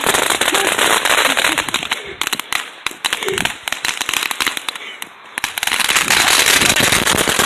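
Firecrackers popping in rapid, continuous crackling bursts, thinning out and quieter between about two and five seconds in, then dense and loud again.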